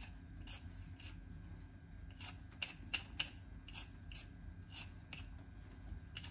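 Vegetable peeler scraping the skin off a raw potato in short strokes, about two a second, two of them sharper about three seconds in.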